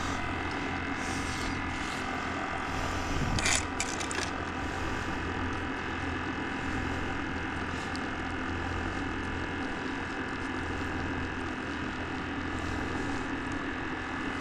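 A steady mechanical hum with several fixed tones, with a few short clicks about three and a half seconds in.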